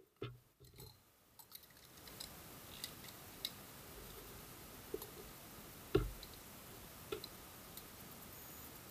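Cardboard product box handled and a metal utility knife picked up and set to its seal: scattered light clicks and taps, the loudest a thump about six seconds in, over a faint steady hiss that comes in about two seconds in.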